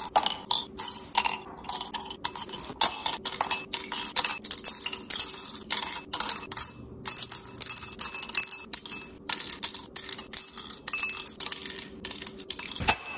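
Plastic Lego minifigures and accessories dropped into a ceramic bowl: a long, dense run of small clicks and clinks as the pieces hit the glazed bowl and each other.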